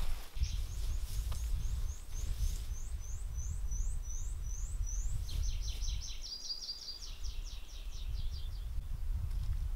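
Songbird singing: a run of short, high rising notes about three a second, then a faster trill that steps down in pitch, over a steady low rumble.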